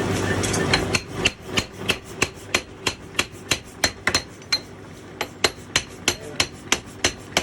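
A blacksmith's hammer striking metal in a steady rhythm, about three blows a second, each blow with a short metallic ring. A steady machine hum runs underneath at first and stops about a second in, just as the hammering starts.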